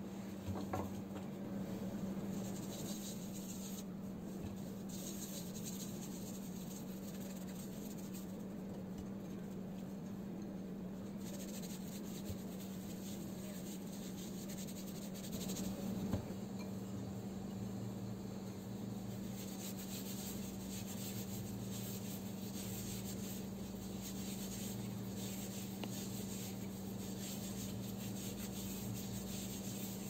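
Hands rubbing and scrubbing whole lemons with coarse white grains in a glass bowl, a continuous gritty rubbing over a steady low hum. About halfway through there is a light knock, as a lemon is set down in a glass dish.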